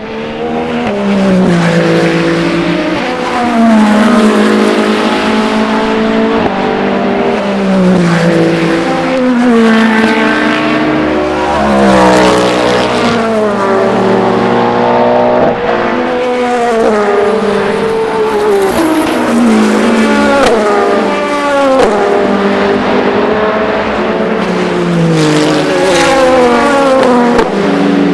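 Race car engines at full volume, several cars in succession, their pitch falling in repeated steps that each jump back up, the pattern of hard braking with downshifts into a corner.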